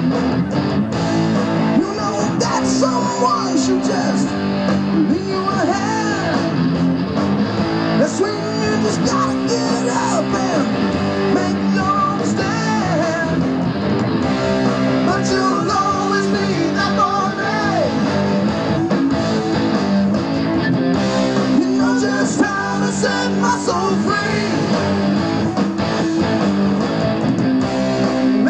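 Live rock band playing through PA speakers: amplified electric guitars over bass and drums.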